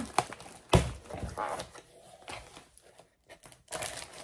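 Packaging from a parcel rustling and crinkling as it is unpacked by hand, with a few sharp knocks. The handling is busiest in the first second and a half, eases off, then picks up again near the end.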